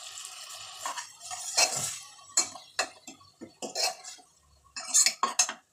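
A steel ladle stirring masala in a pressure cooker, scraping and clinking against the metal pot in a quick, irregular run of strokes. A steady hiss of the frying masala carries through the first second.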